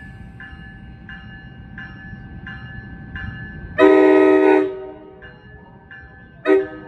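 Train horn sounding a long blast about four seconds in and a short blast near the end, in the grade-crossing pattern. Under it a crossing warning bell dings about three times every two seconds.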